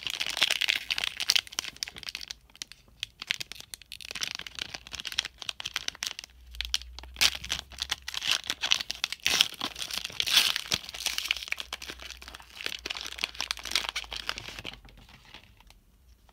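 Foil trading-card pack (Panini Rookies and Stars football) being crinkled and torn open: a long run of dense crinkling and crackling with a couple of brief pauses, stopping about a second before the end.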